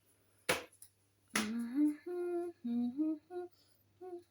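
A woman humming a short tune in held notes that step up and down in pitch, after two sharp clicks in the first second and a half.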